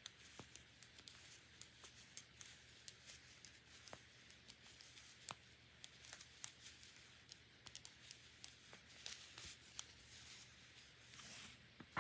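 Faint, irregular clicks and rustling of metal knitting needles and wool yarn as stitches are slipped and purled.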